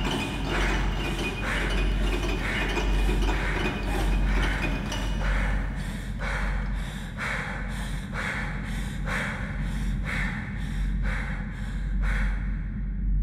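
Trailer soundtrack: a steady low drone under evenly spaced hissing pulses, about two a second, that fade out near the end.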